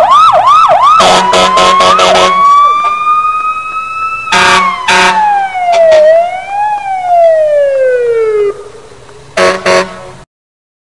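Emergency vehicle's electronic siren: a fast yelp at first, then a slow rising tone and falling and rising wail sweeps, broken by several short horn blasts. It cuts off suddenly near the end.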